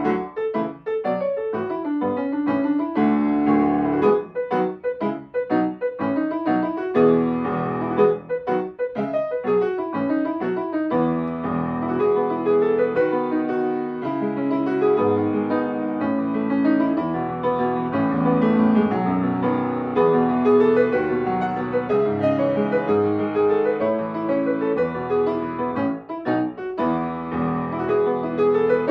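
Solo piano playing a gentle new-age piece: light, short, bouncing notes for about the first ten seconds, then a fuller melody over held, flowing chords.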